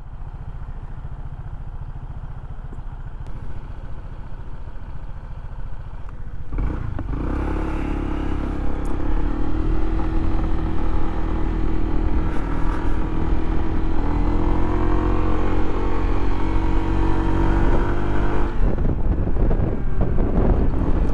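Honda ADV 150 scooter's single-cylinder engine idling, then pulling away about six seconds in and running at a steady cruise; the engine note drops near the end.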